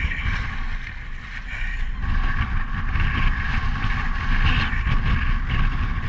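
Wind buffeting the microphone over the rush and slosh of choppy, wind-driven water around a sea kayak. It is steady, growing a little louder about two seconds in.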